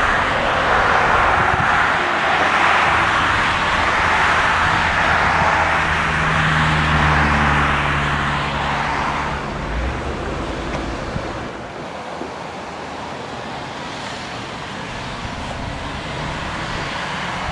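A motor vehicle going by: a loud rushing noise with a low engine hum under it, fading after about ten seconds to a quieter steady rumble.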